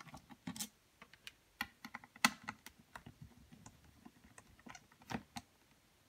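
Scattered light clicks and taps of a small Phillips screwdriver and fingers working the screws and plastic case of an Apple Newton MessagePad during disassembly, coming irregularly with a few sharper clicks among them.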